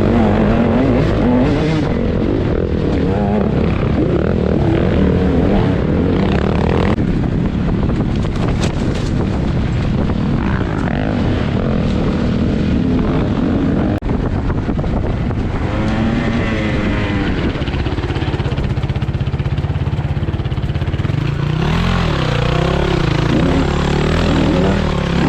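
KTM 150 two-stroke dirt bike engine running hard throughout, its revs rising and falling with the throttle, with clear swells around the middle and again near the end.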